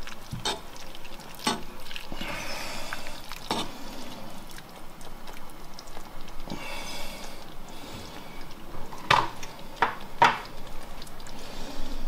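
Metal tongs clinking against a saucepan as tagliatelle is tossed in its cooking water, with the water sloshing in between. The clinks come singly at first, then three close together near the end.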